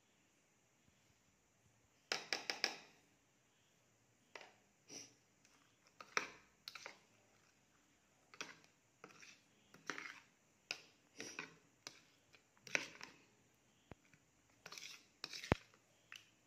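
Steel spoon clicking and scraping against a plastic bowl in short, irregular strokes while mixing curd with sliced onion and spices for onion raita.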